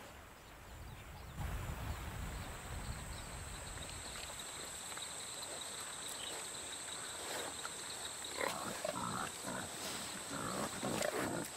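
A herd of peccaries giving short calls that come thicker and faster from about seven seconds in, over a steady high drone of the night forest.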